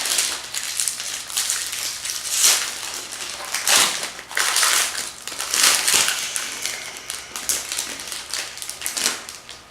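Trading-card packaging and cards being handled: repeated crinkling and rustling, with short scrapes and a few sharper crackles.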